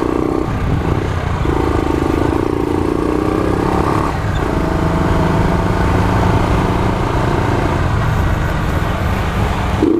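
Honda CG 125 single-cylinder four-stroke motorcycle engine running under way, its note shifting a few times as the throttle and gears change.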